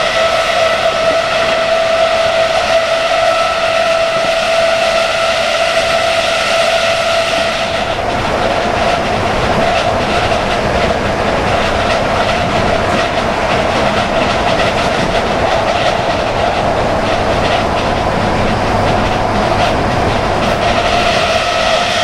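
Class 319 electric multiple unit running at speed: the traction motors whine at a steady pitch. About eight seconds in, the whine gives way to the rush of wheels on rail with faint track clicks, and it returns near the end.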